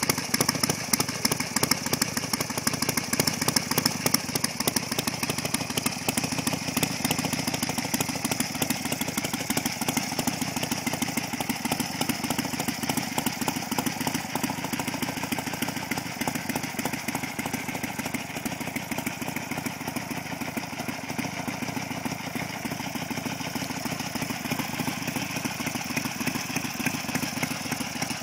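1967 Harley-Davidson XLCH Ironhead Sportster's air-cooled V-twin engine idling steadily, a little quieter in the second half.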